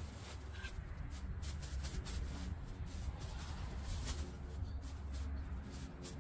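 Faint rustling and scraping strokes over a low steady rumble.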